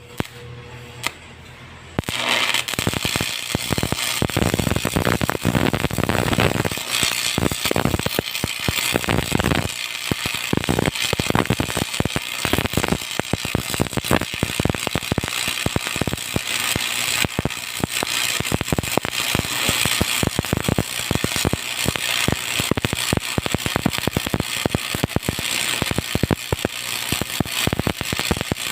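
An electric welding arc strikes about two seconds in, after a few sharp clicks, then crackles and sizzles steadily, laying an overhead weld bead.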